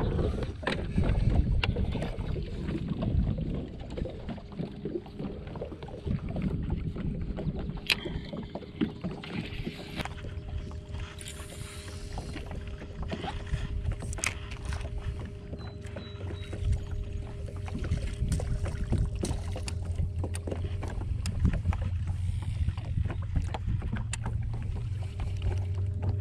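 Wind and water sounds on a small fishing boat, with scattered clicks and knocks from a spinning rod and reel being handled. About ten seconds in, a steady motor hum starts, most likely the boat's electric trolling motor. It stops for a few seconds and comes back near the end.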